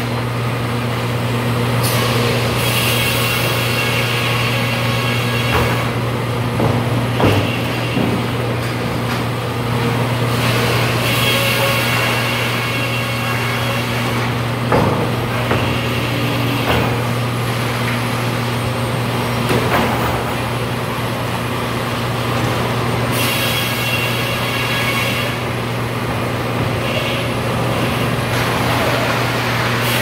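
Helle circular sawmill with top saw running, a steady deep motor hum throughout. Three times, about two seconds each, a burst of higher-pitched noise rises over the hum, and there are a few sharp knocks in between.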